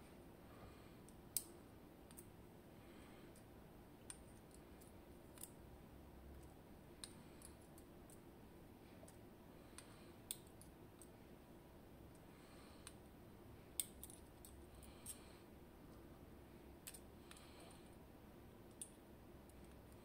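Faint, scattered metallic clicks of steel tweezers working inside a DOM IX Twido lock cylinder's pin chambers as the driver pins are taken out, about a dozen over the stretch at irregular intervals.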